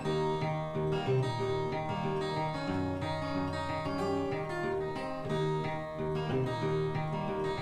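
Background music on acoustic guitar: an even, repeating pattern of notes.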